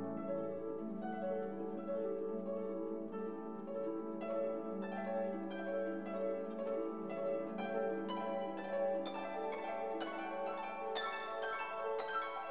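Background instrumental music: a run of plucked notes over held lower notes, growing busier and brighter over the last few seconds.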